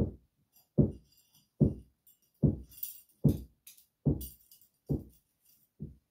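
Background music: a slow beat of deep kick-drum hits a little more than once a second, with tambourine-like jingles over some of the beats, fading out near the end.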